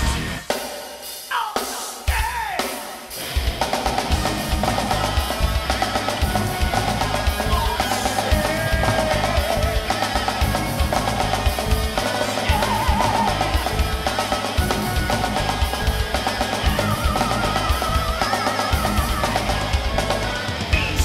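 Progressive metal band playing. A few scattered drum hits open a short break, then a fast, steady kick-and-snare pattern drives under distorted guitars from about three seconds in, with a high wavering melody line on top.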